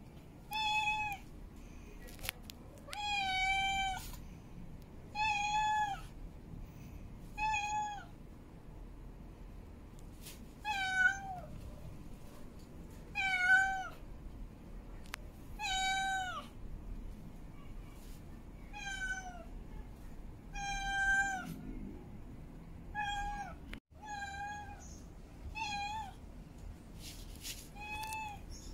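Long-haired female cat in heat calling for a mate: a drawn-out meow repeated about every two to three seconds, about a dozen times, several calls ending with a falling pitch.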